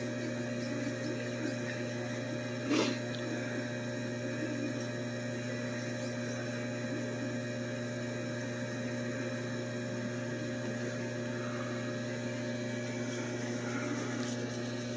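Steady machinery hum made of several fixed tones, with one short knock about three seconds in.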